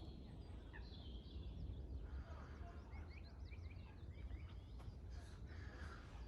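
Songbirds singing and chirping in quick high notes, thickest in a run of repeated chirps about two to three and a half seconds in, over a steady low rumble.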